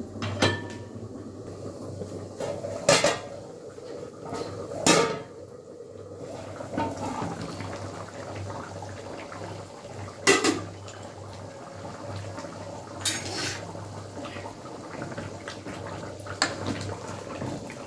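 Steel ladle and lid clanking against a kadai of chicken curry, with about half a dozen sharp metallic knocks spread through, and softer scraping and stirring between them over a steady low hum.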